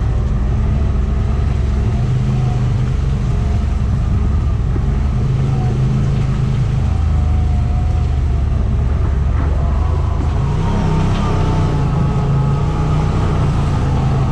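Side-by-side UTV engine running under way on a trail, its pitch stepping up and down with the throttle and rising about ten seconds in.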